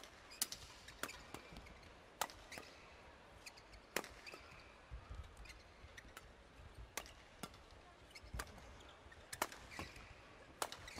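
Badminton rackets hitting the shuttlecock in a fast doubles rally: sharp, crisp cracks at irregular intervals, about a dozen in all, some half a second apart.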